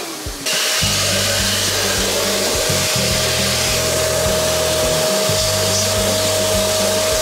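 Cordless handheld vacuum cleaner motor briefly winding down at the start, then switched back on about half a second in. It runs steadily with a constant whine while sucking lint out of a tumble dryer's filter compartment.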